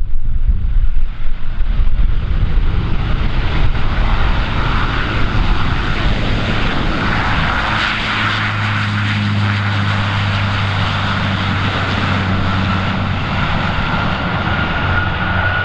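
Airliner's engines at takeoff power during the takeoff roll. A gusty low rumble at first, then a steady drone with a high whine that slowly rises in pitch in the second half.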